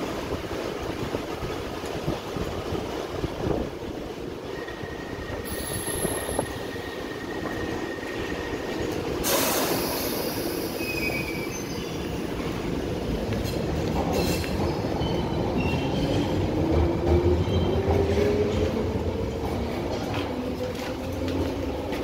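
London Underground train running beside the platform. There is a sharp hiss about nine seconds in. Then the train's motor whine rises in pitch over a strengthening low rumble as it gathers speed.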